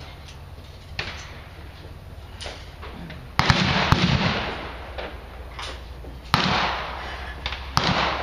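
Semi-automatic Bushmaster M4A3 5.56 mm rifle firing single shots, three loud cracks each with a short echo: a few seconds in, about three seconds later, and near the end. Fainter shots from other rifles on the range fall between them.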